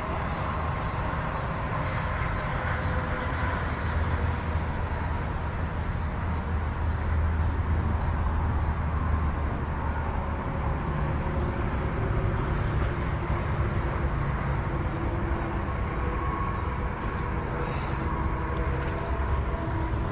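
Wind buffeting the microphone: a steady, gusting low rumble, with a faint steady hum above it.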